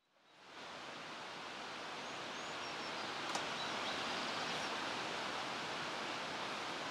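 Steady outdoor hiss of wind or water that fades in over the first half-second. A few faint high chirps and a single sharp click come about three seconds in.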